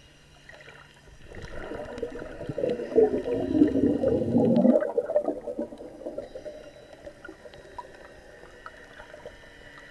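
Muffled underwater gurgling and bubbling of water around a submerged camera. It swells about a second in, is loudest for the next few seconds, and falls back to a low murmur about five seconds in.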